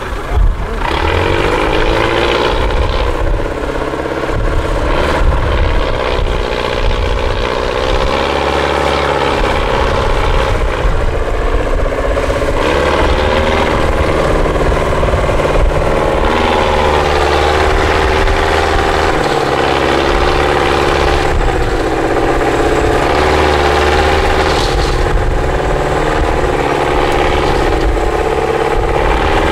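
IFA truck's diesel engine labouring under load in a deep ditch, its revs rising and falling again and again. A single sharp knock comes right at the start.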